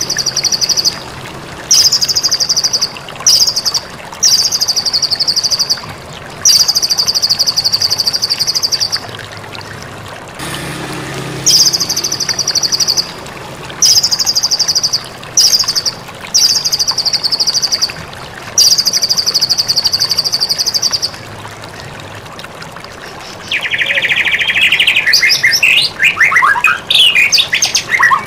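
White-rumped shama (murai batu) singing: a run of rapid, buzzy high trills of one to two seconds each, separated by short pauses. Near the end it switches to lower, more varied phrases with sweeping whistled notes.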